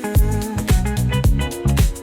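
Background funk music: bass, guitar and a steady drum beat, with no singing.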